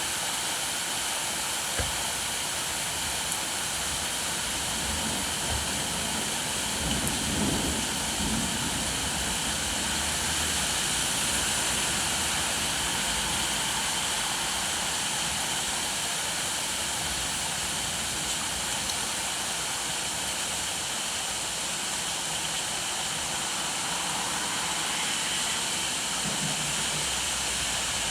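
Steady rainfall, an even hiss of falling rain, with a faint low rumble swelling and fading a few seconds in.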